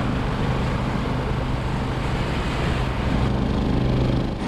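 Steady engine drone of a sailboat under motor, with wind and water rushing along the hull.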